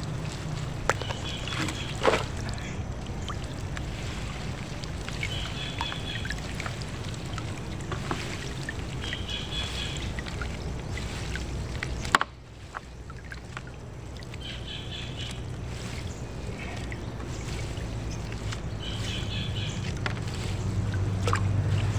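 Water dripping and lapping around a small boat as a gill net with floats is handled, over a steady low hum. A bird gives short chirping calls about every four seconds, and there is one sharp knock about halfway through.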